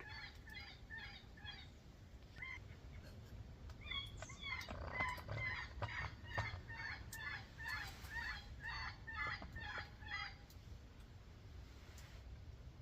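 Electronic predator call playing a baby cottontail distress sound: a run of short, high, wavering squeals, about two to three a second. There is a pause of a couple of seconds after the first few squeals.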